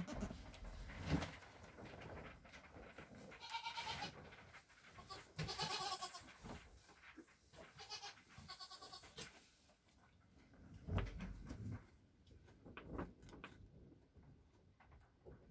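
Nigerian Dwarf goats bleating, a few short calls in the middle stretch, with soft thumps and rustling from newborn kids moving about in wood-shavings bedding.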